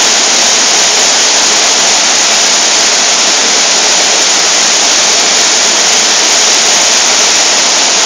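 Loud, steady rush of a waterfall's falling water, an even hiss with no breaks.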